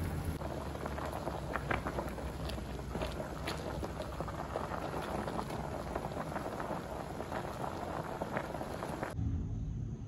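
Water at a rolling boil in a stainless steel pot of vegetables on high heat, bubbling steadily with many small pops. It cuts off abruptly about nine seconds in, leaving only a low hum.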